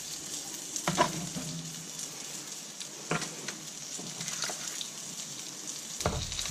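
A metal spoon basting chicken breasts with hot garlic butter in a foil-lined baking tray: a few scrapes and taps of the spoon over a steady sizzle.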